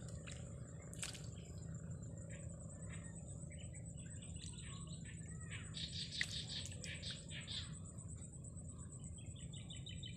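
Small birds chirping in a scatter of short calls, busiest in the middle, then a quick run of repeated notes near the end.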